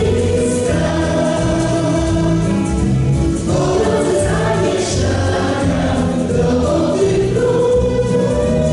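A small group of voices singing a song in Polish together.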